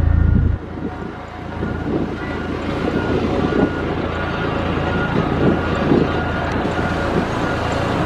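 Heavy earthmoving machine's diesel engine running under load, with irregular crunching and scraping of gravel. A deep hum cuts off abruptly about half a second in, after which the engine and crunching grow slowly louder.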